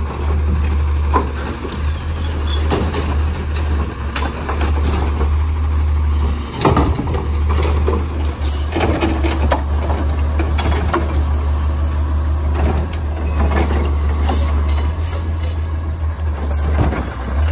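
CNG-powered Autocar ACX automated side-loader garbage truck running with a steady low rumble while its Rapid Rail arm lifts and dumps wheeled trash carts, with scattered clanks and knocks throughout.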